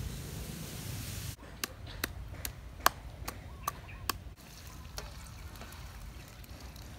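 Wooden pestle pounding in a clay mortar: about seven sharp knocks, two or three a second, starting about a second and a half in and stopping about four seconds in.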